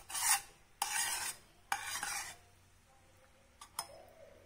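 A spatula scraping and stirring through bubbling jaggery syrup in a steel pan: three strokes about a second apart, then two light clicks near the end. The jaggery is just starting to cook down into caramel syrup.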